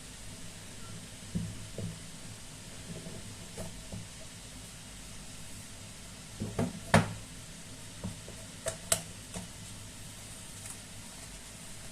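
Scattered light clicks and taps of a phone box and its packaging being handled and opened, over a steady low hum, with a few sharper knocks about seven seconds in and two more about nine seconds in.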